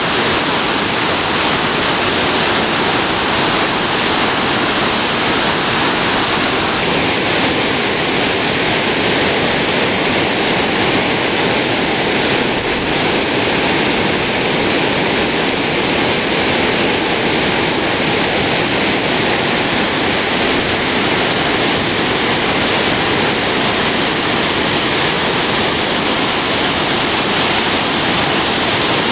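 Spokane River whitewater rapids near flood stage, rushing water making a loud, steady, even roar.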